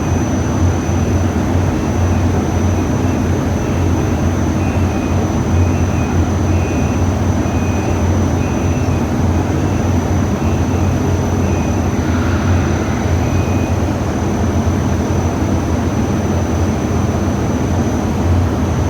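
Steady machine drone, deep and continuous, with a faint high whine above it.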